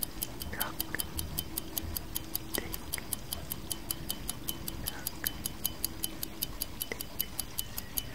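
Clock tick-tock sound effect ticking steadily and quickly, about five sharp ticks a second.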